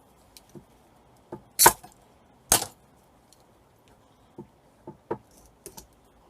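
Sharp knocks and light clicks from tools and cable being handled while flex cable is stripped by hand. Two loud sharp knocks come about a second and a half and two and a half seconds in, with scattered lighter clicks around them.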